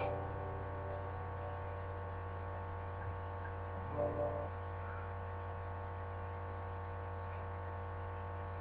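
Steady electrical mains hum with a buzzy ladder of overtones, as the last guitar notes die away at the start; a brief soft sound comes about four seconds in.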